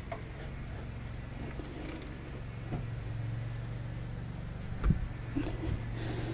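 Light knocks and one sharper thump about five seconds in, from hands working a new auxiliary drive belt onto the pulleys of a Land Rover Defender TD5 diesel engine. A steady low hum runs underneath.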